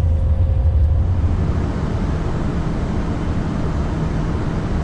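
Steady rumble of an Airbus A340 heard on the flight deck, airflow and engine noise with no voices. About a second in, a strong low hum and a thin steady tone drop away, leaving a slightly quieter, even rumble.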